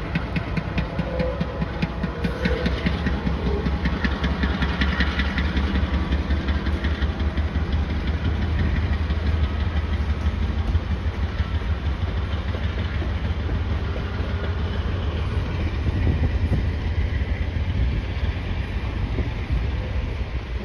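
Diesel-electric freight locomotive engine running with a steady low rumble as a slow coal train passes, followed by loaded coal hopper cars rolling along the rails.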